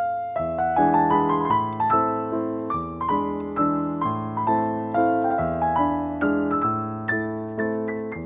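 Background piano music, a gentle melody of struck notes over sustained chords.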